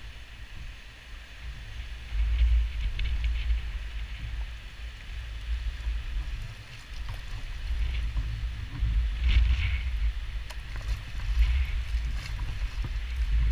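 Wind buffeting a boat-mounted camera's microphone in uneven gusts, with the splash of a kayak paddle dipping into the water every second or two.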